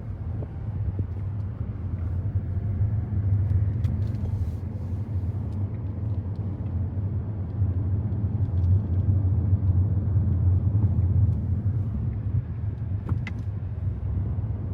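A car being driven, with a steady low rumble of engine and road noise that swells and eases slightly.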